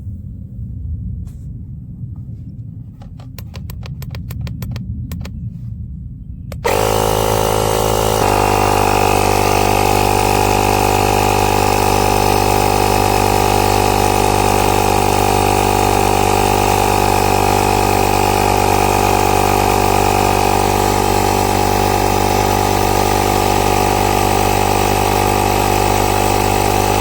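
Small piston air compressor built into a VTOMAN X7 jump starter kicking on about six seconds in and running with a loud, steady hum that settles in pitch after a second or so, pumping up a car tire toward its set 50 PSI. Before it starts there is a low rumble and a quick run of clicks.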